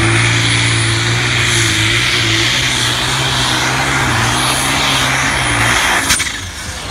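Competition pulling vehicle's engine running hard at high revs, a loud steady drone with a high whine over it. It drops away sharply about six seconds in.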